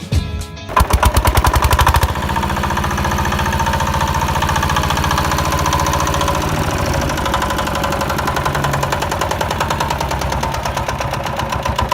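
Homemade mini tractor model running under its small motor: a steady, fast mechanical rattle and buzz, louder for about the first second, then cutting off abruptly at the end.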